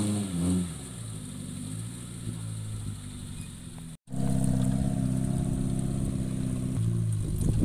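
Off-road vehicle engine running, its pitch falling as the revs drop in the first second. After a sudden break about four seconds in, it runs steadily again and settles lower near the end.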